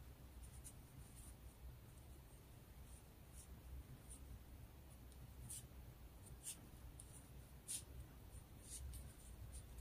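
Near silence with a few faint, scattered light ticks and rustles: cotton yarn being handled and tensioned through the fingers while crocheting, over a low room hum.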